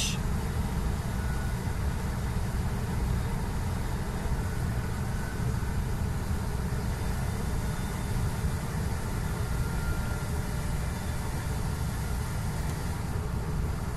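Heavy truck heard from inside the cab on a wet downhill run with its retarder engaged two notches: a steady low rumble from the engine and drivetrain under an even hiss of tyres on the wet road.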